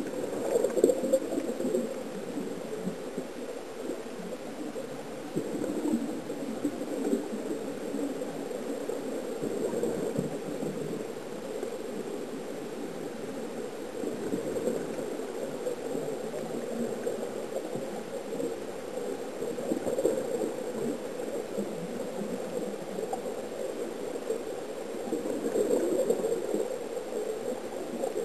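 Underwater recording of air bubbling out of sea-walker diving helmets: a steady muffled gurgling that swells louder every few seconds.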